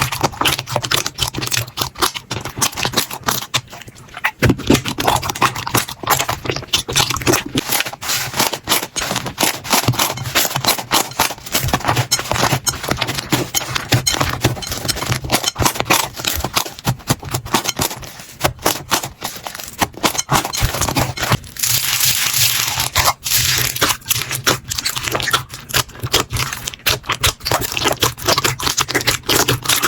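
Slime being squeezed and worked by hand, giving a dense, steady run of sticky crackles and clicks. A louder hissing, crinkly stretch comes about two-thirds of the way through.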